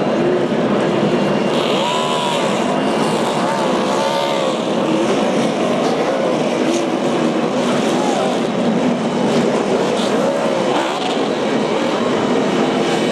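NASCAR stock cars' V8 engines going by on the track at speed. One car after another rises and falls in pitch as it passes, over a steady background of engine noise.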